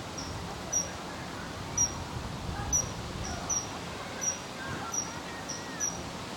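Common kingfisher giving a string of short, shrill, high-pitched calls, each dropping slightly in pitch, about one or two a second at uneven spacing, over a low outdoor background hum.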